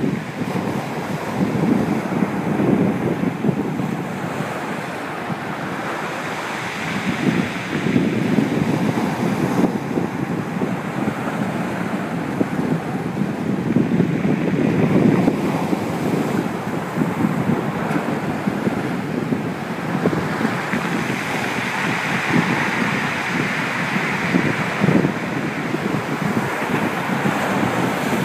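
Sea waves breaking and washing up against a concrete sea wall, the noise of the surf swelling and easing every few seconds, with wind buffeting the microphone.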